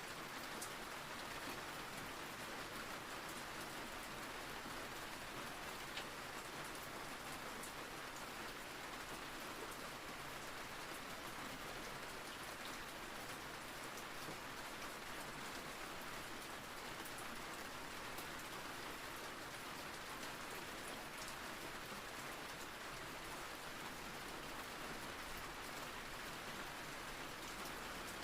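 Steady rain ambience: an even hiss of rainfall with scattered faint drop ticks.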